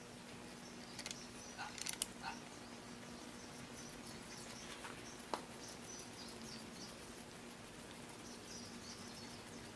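Faint clicks and taps of a Ford 4.0L OHV oil pump being positioned by hand against the engine block: a small cluster about two seconds in and one sharp tick a little past five seconds. Under them are a low steady hum and faint high chirping.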